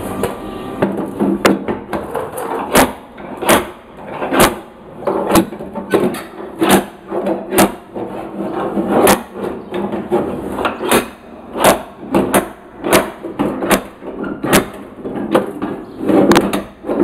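Slide hammer pulling out the crumpled front panel of a VW Fusca (Beetle): its sliding weight is driven back against the end stop again and again, a steady series of sharp knocks a little more than one a second. The panel was pushed in by a frontal impact and is being pulled back into line.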